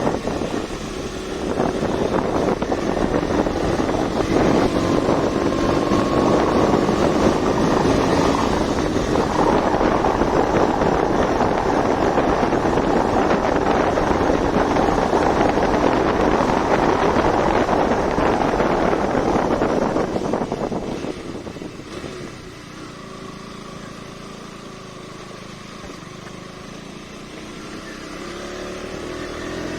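KTM Duke 200's single-cylinder engine running under way, with heavy wind rush on the microphone. About two-thirds of the way through the wind drops away and the engine runs quieter and steadier, then its revs climb near the end.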